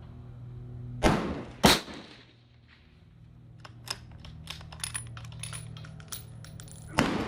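Rifle shots at a shooting range: two shots about half a second apart near the start and another near the end. Between them comes a quick run of small metallic clicks and taps.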